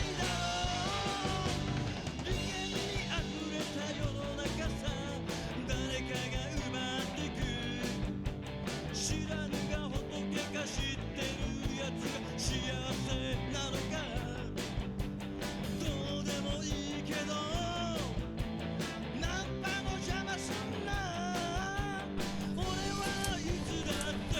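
Background rock music with singing and guitar.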